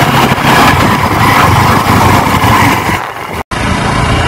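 Yamaha R15 motorcycle's single-cylinder engine running on the move, under heavy rushing wind and wet-road noise on the handlebar-mounted phone's microphone. About three and a half seconds in, the sound drops out for a moment and comes back a little quieter and less hissy.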